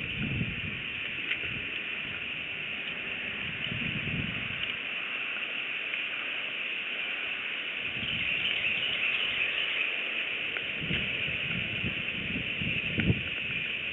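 Bald eagles rustling and shifting sticks and moss in their nest, with soft scuffs and a sharp click near the end, over a steady high hiss from the nest-cam microphone.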